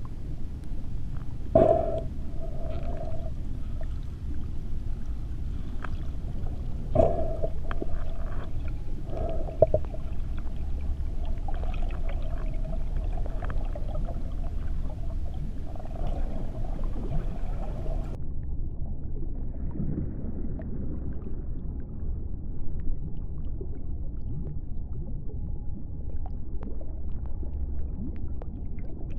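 Underwater ambience heard through a diving camera's waterproof housing: a steady, muffled low rumble of water with a few sharp knocks, the loudest about two and seven seconds in. About two-thirds of the way through, the sound turns duller as the higher tones drop away.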